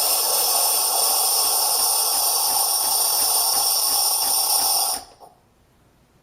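illy X8 iperEspresso machine's steam wand hissing steadily as it vents, purging water before frothing. The hiss cuts off suddenly about five seconds in.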